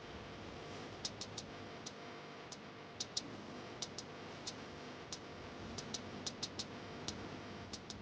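Faint, sharp clicks at irregular intervals, often in quick pairs or clusters, over a low steady hiss.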